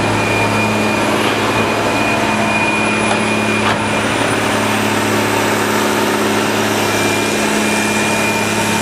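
Diesel engine of a CAT 160M motor grader running steadily, with a thin high whine over it for much of the time.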